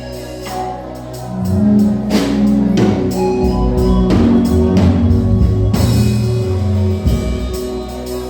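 Live gospel band playing an instrumental passage: drum kit hits over sustained bass and keyboard chords.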